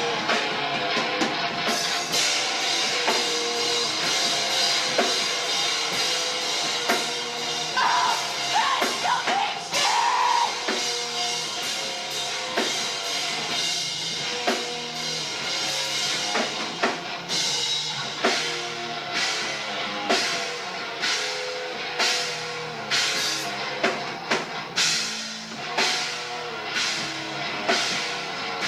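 Live rock band playing a song: drum kit and electric guitar, with steady heavy drum hits through the second half.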